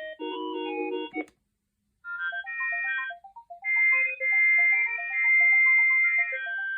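Huawei ETS3023 phone playing its preloaded ringtones through its small speaker: a synthesized melody stops with a click a little over a second in, and after a short silence a different, higher electronic ringtone tune starts.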